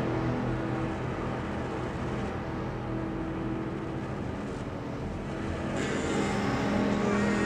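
Ambient drone from tape played at half speed through a Mutable Instruments Clouds granular processor: a dense, low, noisy wash with faint held tones. It thins a little midway, and clearer held tones come back about six seconds in.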